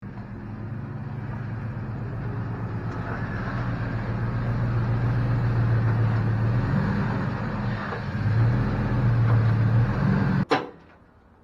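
Pickup truck engine running steadily, its hum growing gradually louder. It cuts off abruptly with a sharp click about ten and a half seconds in.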